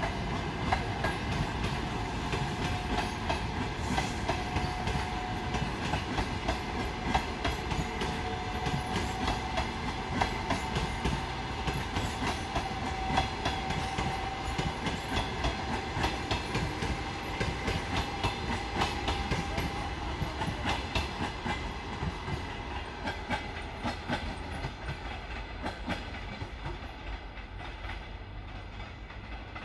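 Passenger coaches rolling past at speed, their wheels clacking rhythmically over rail joints above a steady rumble, with a faint steady whine through the middle. The sound fades over the last several seconds as the train moves away.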